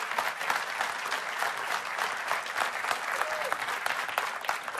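Large audience applauding, a steady dense clapping that carries on throughout.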